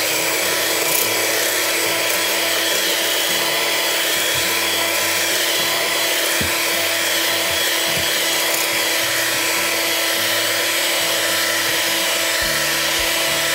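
Electric hand mixer running steadily, its beaters whipping cream in a stainless steel bowl; the cream is not yet at stiff peaks.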